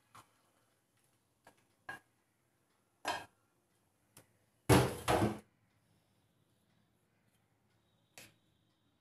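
Scattered light knocks and clinks of a saucepan and a ceramic bowl being handled on a kitchen counter, with one louder, noisy clatter lasting under a second about five seconds in.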